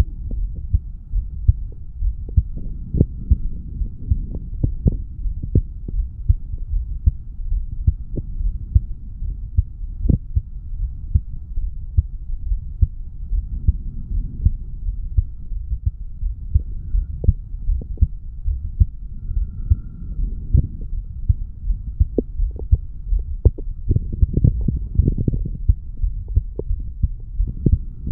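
Human heartbeat recorded at the chest over the mitral valve area after lifting weights: a steady run of short, sharp low beats over a continuous low rumble.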